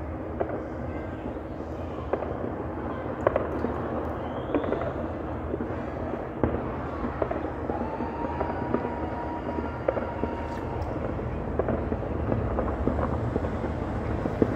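Fireworks going off all over the city: a continuous crackle of many distant bangs, with scattered louder pops standing out from it.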